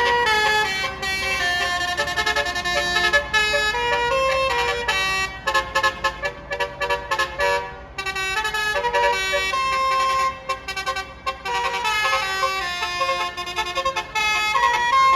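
Basuri telolet bus horn, a multi-trumpet air horn, playing a tune in stepped notes. Held notes give way to a fast run of short toots midway, with a brief break about eight seconds in before the tune resumes.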